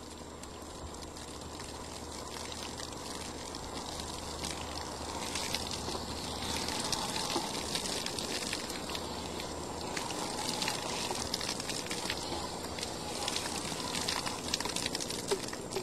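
Water from a hose running into a horse's mouth and splashing out, flushing the mouth before the dental exam. It grows gradually louder over the first several seconds.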